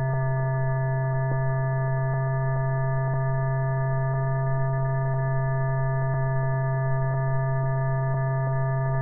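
Steady electrical hum: a strong low tone with fainter higher overtones and a few faint clicks. It is the background hum of an old 1961 film soundtrack, not sound from the cargo handling shown.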